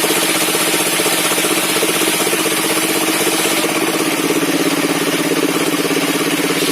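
Engine of a circular sawmill running steadily, with a fast, even pulsing and a constant pitch.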